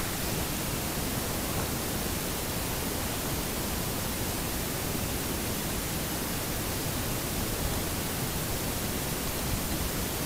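A steady, even hiss that does not change, with no other sound standing out.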